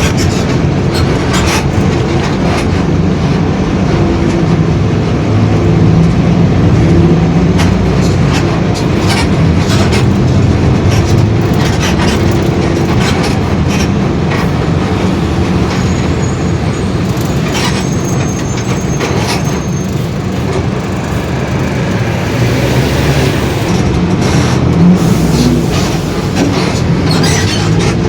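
Mercedes-Benz OF-1721 BlueTec 5 city bus under way, its six-cylinder diesel running with a steady low drone and the differential growling, over constant rattles and knocks. A thin high whine sounds for a few seconds past the middle.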